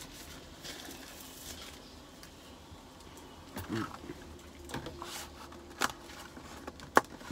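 Handling noise from a paper food wrapper and a person shifting in a van seat: soft rustles and a few clicks, the sharpest near the end.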